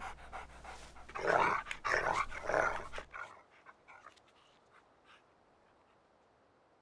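A dog's short vocal sounds, three in a row starting about a second in, then near quiet with a few faint clicks.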